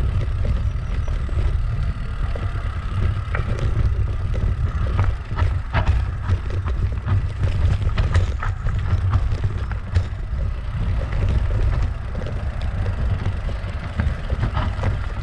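Riding noise of a bikepacking bicycle being pedalled slowly uphill: a steady low rumble with frequent rattling clicks from the bike.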